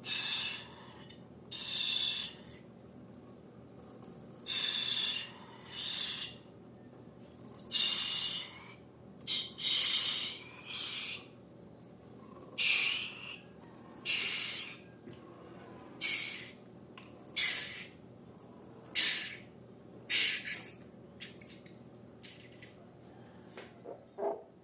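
A series of short hissing bursts, about one every second or so, each lasting under a second; the later ones start sharply and fade quickly.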